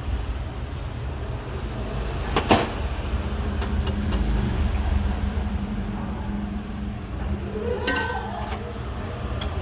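Street traffic rumbling steadily, with a few sharp knocks, the loudest about two and a half seconds in and more near the end.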